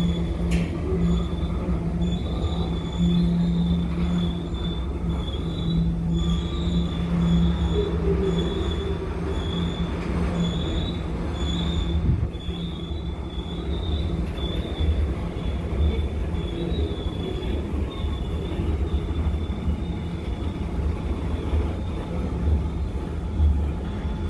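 Freight train rolling by with its steel wheels squealing on the rails, a high squeal that keeps breaking off and returning over a steady low rumble. A deeper hum drops out about halfway through.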